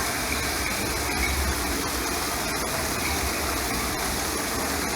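Steady rushing of falling water, with a low rumble underneath.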